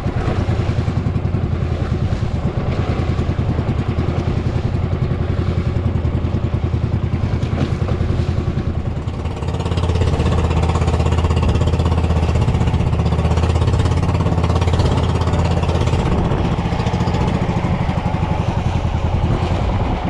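Small fishing boat's engine running steadily with a rapid even chug, dipping briefly about nine seconds in, then running louder, as if throttled up.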